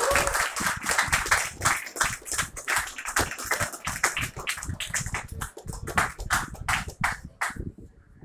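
Room of people applauding, the claps thinning to scattered single claps near the end.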